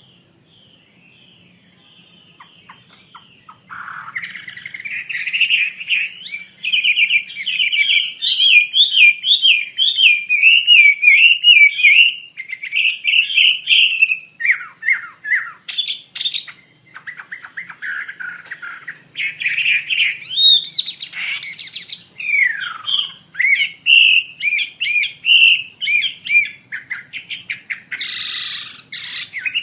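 Chinese hwamei (Garrulax canorus) in full song: a loud, varied stream of rapid warbled trills, clear whistles and sliding notes. It starts about four seconds in, after a few faint calls.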